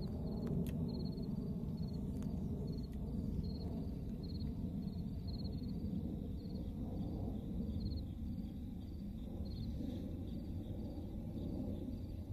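A cricket chirps in short pulsed trills at one high pitch, about two a second, growing fainter towards the end, over a low steady rumble. A few faint clicks come in the first three seconds.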